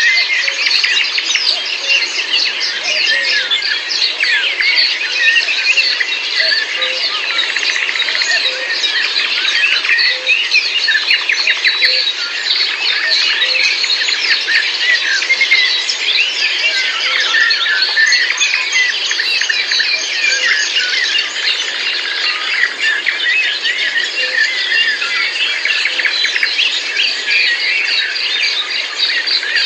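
Many songbirds singing and chirping at once, a dense, continuous chorus of overlapping trills and quick notes.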